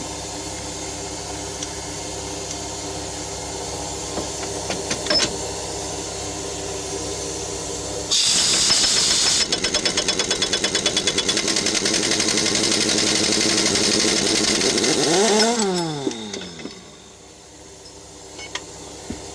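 1-inch air impact wrench with a 2 1/4-inch socket breaking loose a drive-axle pinion nut. It kicks in about eight seconds in with a loud rush of air, hammers rapidly for about seven seconds, then winds down with a falling whine as the nut comes off easily. Before it starts, a steady machine hum runs underneath.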